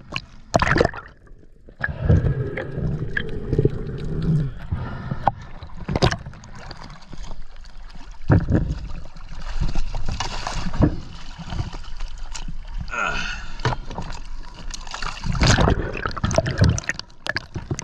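Water splashing and gurgling around a camera at the surface as it dips in and out of the water, with irregular surges and sharp knocks.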